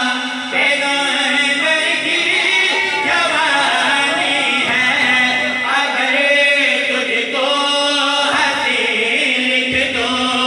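A man reciting devotional verse in a melodic chant into a microphone, amplified through loudspeakers, his sung lines broken by short breaths, over a steady low held tone.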